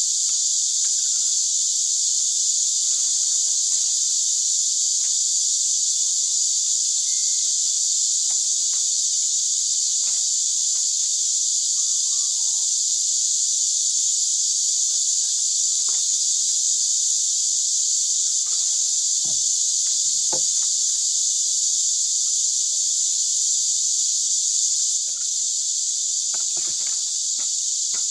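Steady, high-pitched drone of an insect chorus, with faint taps and clicks of bamboo strips being laid and woven by hand a few times.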